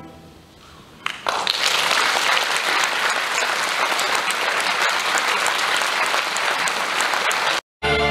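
Audience applause, starting about a second in as the orchestra's last chord dies away, and cutting off abruptly near the end.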